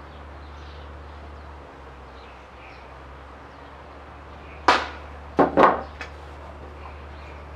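Three sharp wooden knocks in quick succession, a little after halfway, as the small hardwood L-bracket block is set down and handled on a wooden tabletop, over a faint steady hum.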